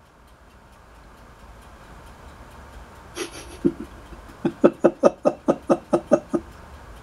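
A person laughing: a quick run of about a dozen short pitched "ha" pulses from a little past halfway in, after a short breathy sound about three seconds in, over a faint low hum and hiss.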